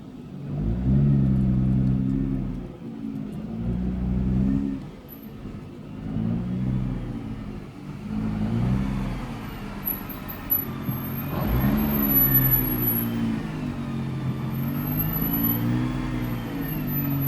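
2017 Nissan GT-R's twin-turbo V6 running under load while driving, its note rising and falling, with high-pitched screeching, chirping noises coming and going over it, loudest in the second half.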